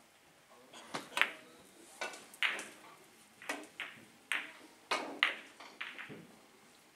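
Carom billiard balls on a three-cushion table: a cue strike, then a string of sharp clicks and knocks as the balls hit each other and the cushions, about a dozen over several seconds, while the shot plays out.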